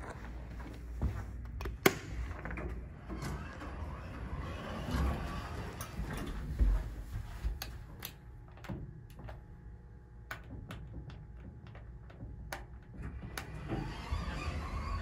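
Dover hydraulic passenger elevator's doors sliding, with a scattering of sharp clicks from call and car buttons being pressed.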